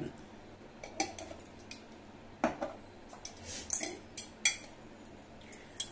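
Small metal spoon clinking and tapping against glass spice jars while spices are measured out: a scattering of short, sharp clicks at uneven intervals.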